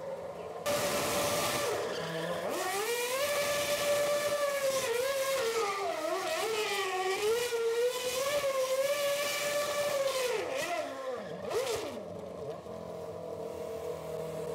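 Red Bull RB8 Formula One car's V8 engine revving hard during donuts, its pitch rising and falling with the throttle over the noise of spinning rear tyres. About eleven seconds in the revs drop and it settles to a lower, quieter steady note.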